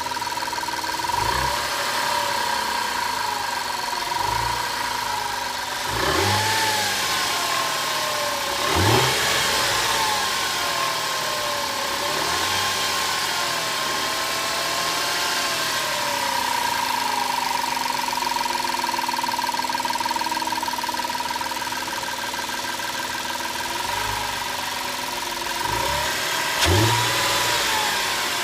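Audi A4 3.2-litre V6 engine idling and blipped about seven times, each rev rising and falling back, under a steady high-pitched whine that keeps the same pitch while the revs change. The whine is the kind of unexplained noise the owner is asking about.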